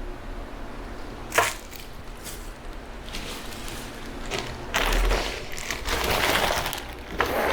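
Rustling of plastic packaging as haul items are handled, with a single sharp click about a second and a half in.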